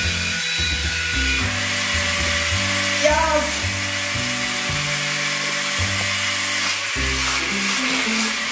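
Suction fan of a remote-control wall-climbing spider toy whirring with a high, steady whine as the toy runs across a ceiling, over background music with a changing bass line.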